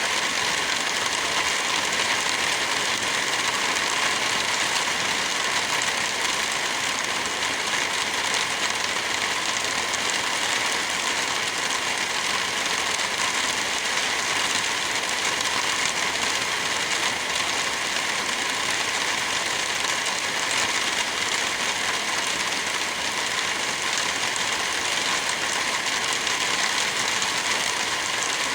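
Heavy rain falling steadily, an even hiss with no breaks or separate impacts.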